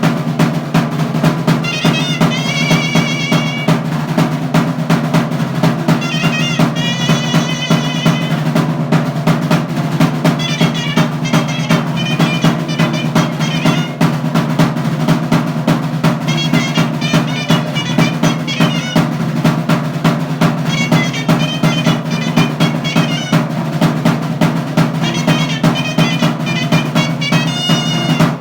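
Chirimía, a folk shawm, playing a high, wavering melody in short repeated phrases over fast, continuous drumming with rolls.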